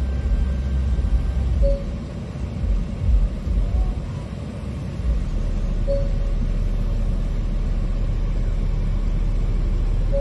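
A steady low rumble, with a short electronic beep about every four seconds.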